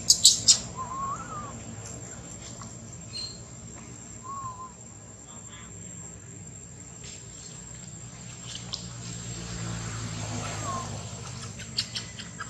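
Outdoor ambience with a steady high hiss-like tone and a low hum. A few brief whistled calls rise and fall, and quick bursts of sharp clicks come at the start and again near the end.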